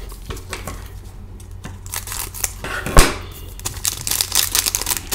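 Foil wrapper of a hockey trading card pack crinkling and tearing as it is opened by hand, with a single sharp pop about three seconds in.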